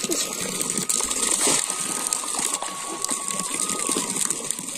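Shallow pond water sloshing and splashing around a person wading in it and working a cast net by hand.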